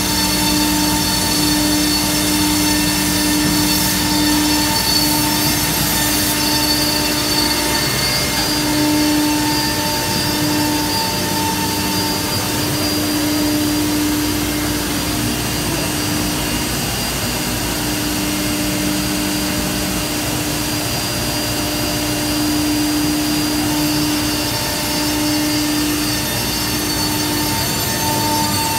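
Multi-spindle CNC router running as it cuts melamine-faced particleboard panels. It makes a steady machine noise with a constant hum and a high whine that swell and fade slightly.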